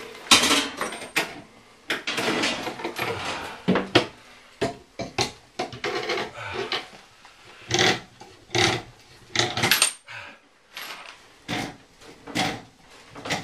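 Irregular clicks, knocks and clatter of hand tools and PEX pipe fittings being handled during a plumbing job.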